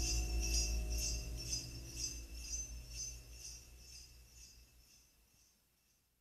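Sleigh bells jingling in a steady rhythm, about two shakes a second, over low held music notes, all fading out over about five seconds.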